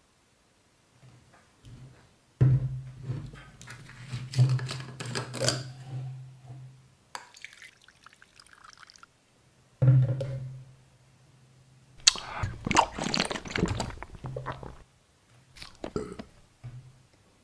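Mouthwash poured from its bottle into a small plastic cap. There are two loud thunks, about two and a half and ten seconds in, and each is followed by a few seconds of pouring and splashing, with fainter handling sounds in between and near the end.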